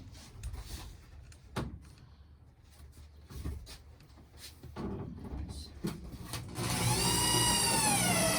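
A few scattered knocks of wood being handled, then a power drill starts about two-thirds of the way in and runs with a loud, high whine whose pitch sags near the end as the motor comes under load, as when driving a screw into wooden wall framing.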